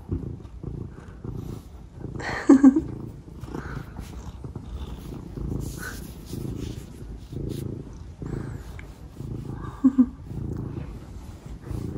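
Domestic cat purring close up, in a steady low rhythm of breaths, broken twice by a short meow, about two and a half seconds in and near the ten-second mark.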